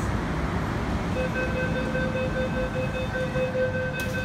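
Door-closing warning beeps on an MTR platform: a rapid, even electronic beeping starts about a second in over the steady rumble of the station and the waiting K-Train. A single sharp click comes near the end.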